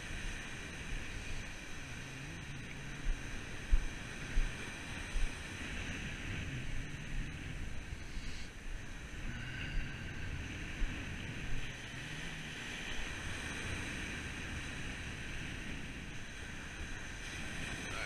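Ocean surf breaking and washing up the beach, with wind buffeting the microphone in a few short gusts about three to five seconds in.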